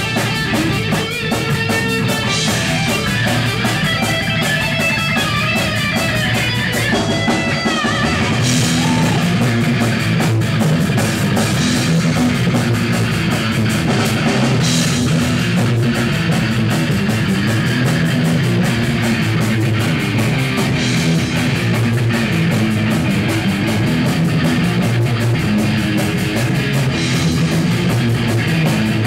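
Live rock band playing loud, with electric guitars, bass and drum kit. A high melodic line runs over the first seven seconds, then the full band plays on with cymbal crashes every few seconds.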